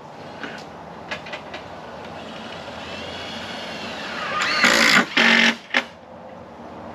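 Cordless drill driving screws into oak fence boards: two short runs, about four and a half and five seconds in, over background noise that slowly grows louder.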